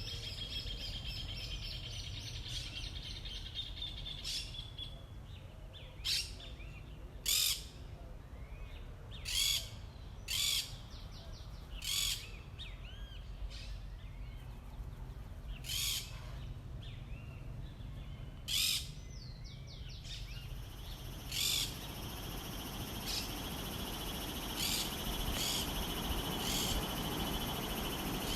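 A bird giving about eight short, harsh calls, one to three seconds apart, over a steady low rumble. Near the end a dense, steady chorus of insect trilling swells up.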